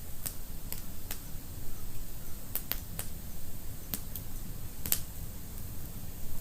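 Wood fire in a fireplace crackling: sharp, irregular pops, about nine of them, some in quick pairs, over a low steady rumble of the flames.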